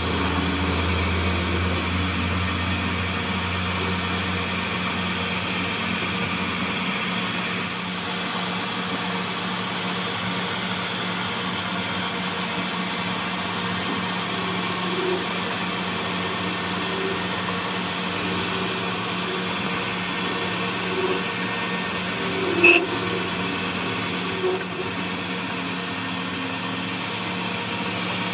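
Metal lathe running with a steady hum while the cutting tool turns a threaded metal shaft. About halfway through, short scraping bursts of the tool biting into the metal come and go roughly every two seconds.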